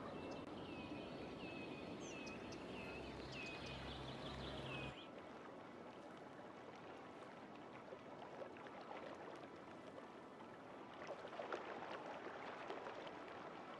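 Steady outdoor background noise with a low rumble and a short high chirp repeated about twice a second. About five seconds in it cuts abruptly to a quieter, even hiss with a few faint ticks near the end.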